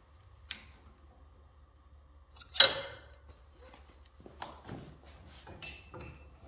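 A sharp metallic clank with a brief high ring about two and a half seconds in, then a few lighter knocks and clicks: metal tools and parts being handled on a combination machine's shaper during a spindle swap.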